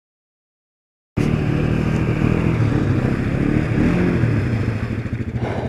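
Silence for about the first second, then Yamaha Grizzly ATV engines running under load in deep mud, the engine note rising and falling as they rev.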